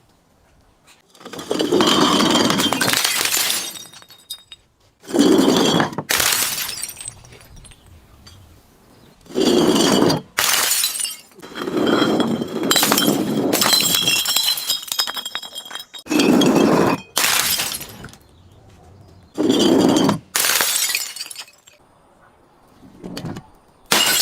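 Glass bottles breaking, one after another: about eight loud smashes a second or two apart, each a crunch of shattering glass with high ringing from the shards.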